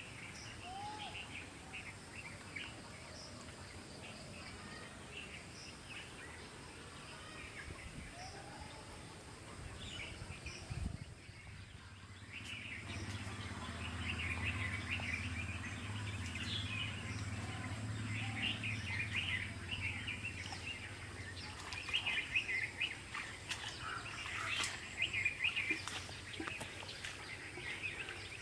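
Many small birds chirping and calling, busier in the second half. A low steady hum joins for several seconds in the middle.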